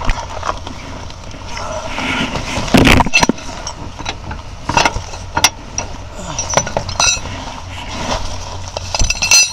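Tow chain and hooks clinking and rattling as they are worked under the front of a car, among scrapes and knocks; the loudest knock comes about three seconds in.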